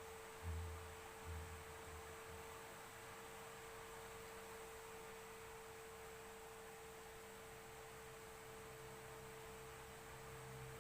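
Faint steady hum, a single high-pitched tone over low hiss, with two soft low thumps about half a second and a second and a half in.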